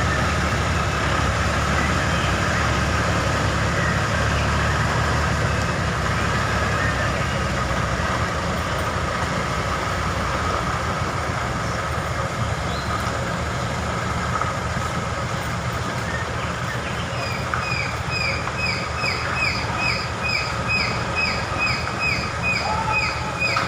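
Diesel engines of a concrete pump truck and mixer truck running steadily during a concrete pour. From about two thirds of the way through, a rapid series of short, high, falling chirps repeats two or three times a second.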